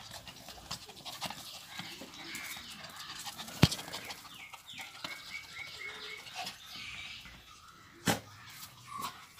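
Lhasa Apso puppies playing close to the microphone: scuffling and rustling, with a sharp knock about a third of the way in and another near the end, and short high animal calls in the middle.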